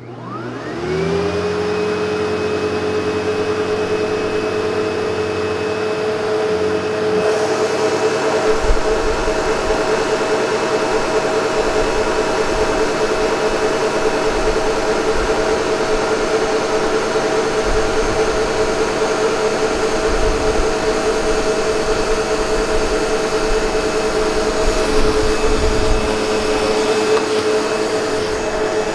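SEBO Automatic X7 upright vacuum cleaner switching on, its motor spinning up with a quickly rising whine in the first second. It then runs with a steady whine while its brush roller turns and it is pushed over tile floor, picking up pet hair and breakfast cereal.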